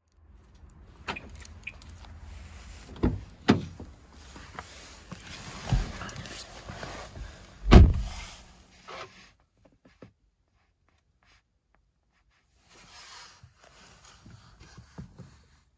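Footsteps and the Skoda Octavia III's door being opened, several knocks as someone gets in, then the door shutting with a heavy thump about eight seconds in. After that the cabin is quiet apart from a few faint handling sounds; the engine is not yet running.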